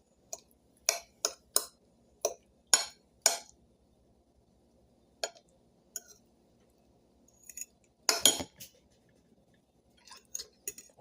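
Cutlery clinking and tapping against a dish of cooked eggs: a dozen or so short, sharp clicks at irregular intervals, with a louder clatter a little past eight seconds in.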